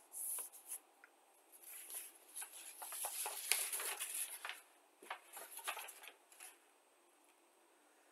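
Irregular crackling rustle of a large folded paper instruction leaflet being lifted, turned over and laid flat again. The rustling stops a little more than a second before the end.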